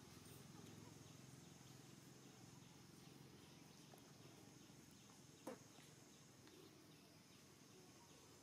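Near silence: faint outdoor background with a steady high-pitched hiss, broken once by a single short click about five and a half seconds in.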